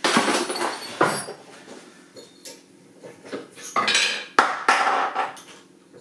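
Metal hand tools clattering and clinking as they are handled and set down on a workbench. The sound comes in separate bursts: one at the start, a single knock about a second in, and a cluster of clinks about four to five seconds in.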